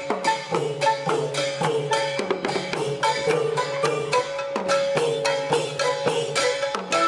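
Thai long drums (klong yao) beaten by hand in a marching drum band, a steady beat of about two strokes a second, with a ringing tone held over it.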